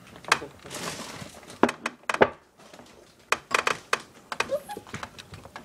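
Phone handling noise as the camera is moved about: a string of irregular knocks, clicks and rustles.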